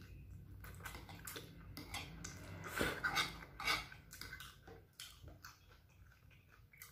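A person slurping and chewing fried noodles up close, with small clicks of metal chopsticks and a fork against the plate. The loudest slurps and clicks come about three to four seconds in.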